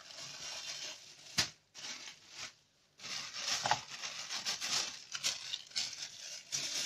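A plastic freezer bag filled with sliced bell peppers crinkling and rustling as it is handled. There is a sharp tap about a second and a half in, a short pause, then more rustling.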